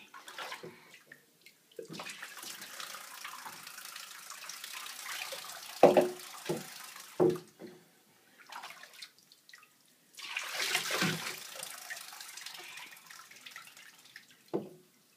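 Water pouring and trickling into bathwater through a bath-toy funnel and water wheel, in two spells of steady hiss, the second starting about ten seconds in. A few short sharp sounds cut in, the loudest about six seconds in.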